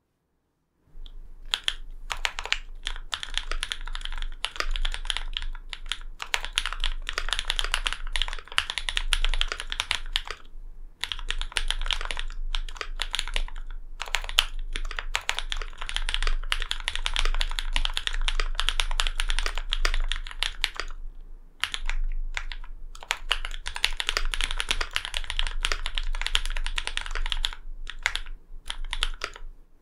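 Typing on a Linworks Whale75 custom mechanical keyboard with an aluminum plate, lubed Cherry MX Black linear switches with Novelkey Cream stems, and GMK keycaps: a dense, fast run of key clacks that starts about a second in, broken by a few short pauses.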